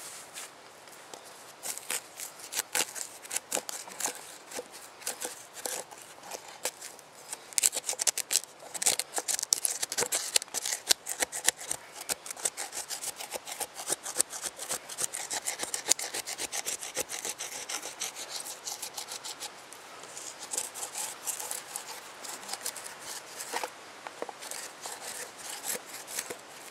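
A wooden stick scraping and gouging charred wood out of a fire-burnt hollow in a log round, loosening the charcoal to clean out and deepen the bowl. The quick, rough scraping strokes come thickest and loudest through the middle.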